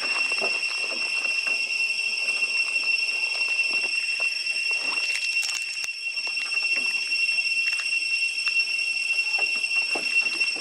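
Steady high-pitched insect drone, a single unbroken tone with a fainter one an octave above, over scattered faint taps and knocks.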